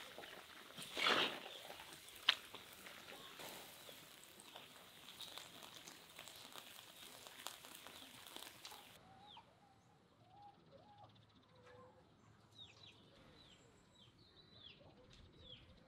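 Meat and potatoes sizzling in a cauldron while a metal spoon stirs them, with a loud scrape about a second in and a sharp clink soon after. About nine seconds in this gives way to quieter outdoor sound with small birds chirping in short falling notes.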